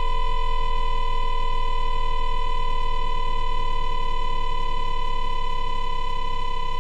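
Inverter whine of a JR East E2-1000 series Shinkansen's 3-level IGBT VVVF traction drive, picked up electrically by an inductor: asynchronous dipolar modulation on a 500 Hz carrier during electric braking at low speed. A steady electronic tone dominated by one strong pitch at twice the carrier, with fainter steady tones above and below it.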